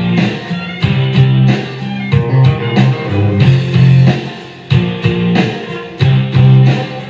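Instrumental break of a pop song: guitar over a steady beat and bass line, with no singing.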